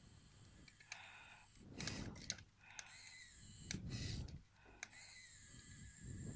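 Handheld 3D pen running faintly, its filament-feed motor driving out hot plastic as it draws, with a few sharp soft clicks.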